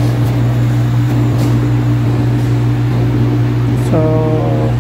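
Loud, steady low machine hum. About four seconds in, a short pitched sound rises above it.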